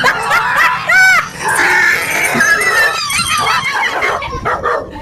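Shrill animal squeals and yelps mixed with screaming, with a loud arched cry about a second in.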